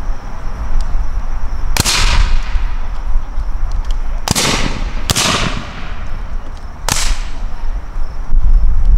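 Four single shots from black-powder .58 calibre rifle-muskets, each a sharp crack with a fading echo. The middle two come less than a second apart, the others about two seconds apart, as the shooters reload and fire as fast as they can.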